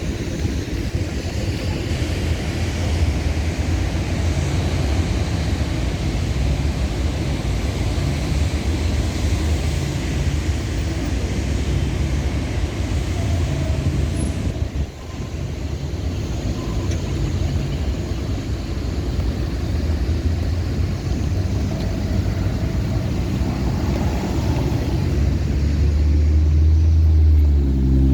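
Steady city street traffic: a continuous rumble of passing vehicle engines and tyres. Near the end one vehicle's engine grows louder and rises in pitch as it accelerates close by.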